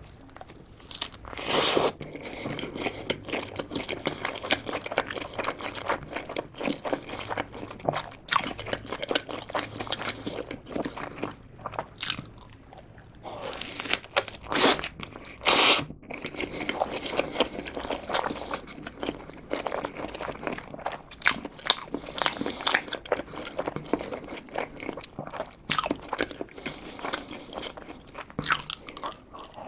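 Close-miked eating of a Burger King Quattro Cheese burger: bites and steady chewing, with many sharp crunches scattered throughout.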